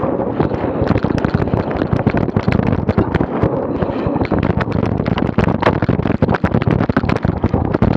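Wind buffeting an action camera's microphone on a moving bicycle, with a constant irregular rattle and knocking as the cyclocross bike rides over rough pavement and grass.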